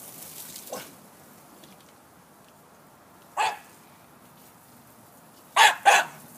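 Staffordshire bull terrier puppy barking in short bursts: a faint bark just under a second in, another about halfway through, then two loud barks in quick succession near the end.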